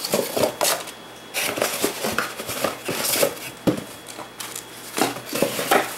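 Cardboard box and plastic packaging being handled as a hand mixer is unboxed: irregular rustling, scraping and light knocks.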